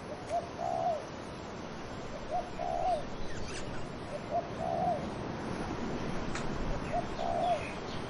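A dove cooing four times, about every two seconds, each call a short note followed by a longer one, over a steady rush of wind in trees.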